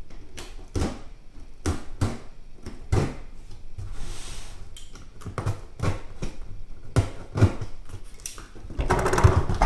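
Cardboard box being cut open with a box cutter and handled: a string of knocks and taps on the cardboard, a short hiss about four seconds in, and louder cardboard rustling near the end.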